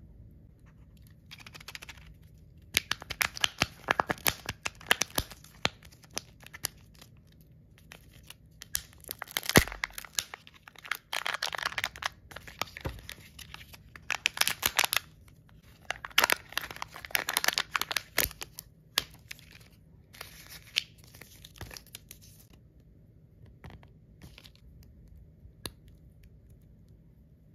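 Thin plastic packaging crinkling and tearing as a surprise toy capsule's peel-off lid and a small toy's clear plastic wrapper are opened by hand, in several spells of sharp crackling with pauses between.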